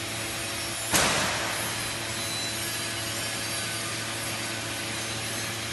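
Steady hum and noise of machinery running in a workshop hall. About a second in comes one sudden loud noise that dies away over about a second.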